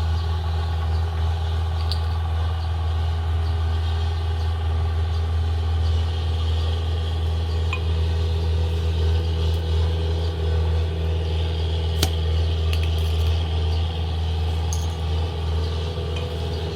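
A motor or engine running steadily with a low, even hum, and a single sharp click about twelve seconds in.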